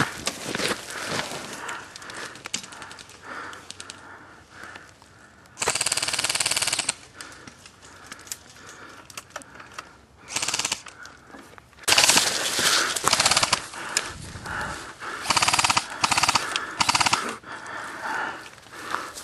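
Airsoft electric guns (AEGs) firing full-auto bursts, a fast rattle of shots. The first burst comes about six seconds in and lasts about a second, and more bursts follow from about twelve seconds in.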